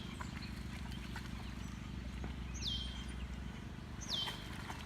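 A bird's short whistled call, sliding sharply down in pitch and then holding briefly, heard twice over a steady low hum.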